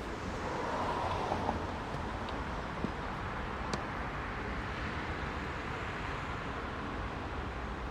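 Steady noise of heavy city road traffic: many cars passing. It swells about a second in as a vehicle goes by, and a few sharp knocks sound briefly within the first four seconds.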